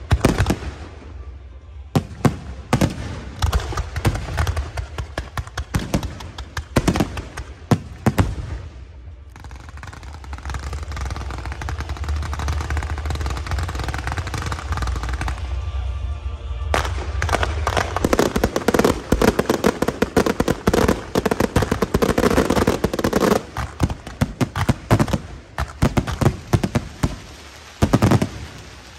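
Aerial fireworks: shells bursting with scattered sharp bangs over a low rumble. About halfway through they give way to a dense, rapid crackling barrage of reports that ends with a last loud burst near the end.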